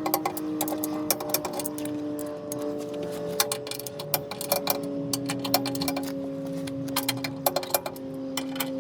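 Torque wrench ratcheting in irregular clicks as it tightens the M12 skid plate bolts toward 33 lb-ft, the clicks coming faster near the end, over steady background music.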